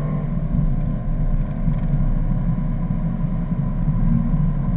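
A 2011 BMW M3's V8 engine and road noise heard from inside the cabin at track speed: a steady low rumble with no sharp changes.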